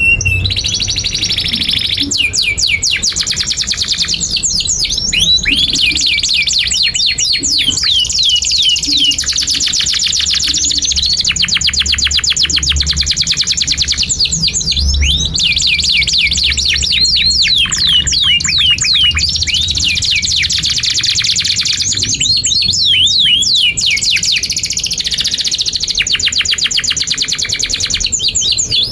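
Canary song: a long, unbroken run of rapid high trills alternating with repeated downward-sweeping chirps, over a steady low hum.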